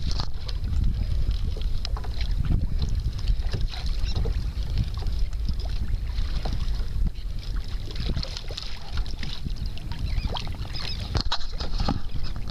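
Wind buffeting the microphone and choppy water lapping against a kayak, with scattered short knocks and splashes throughout.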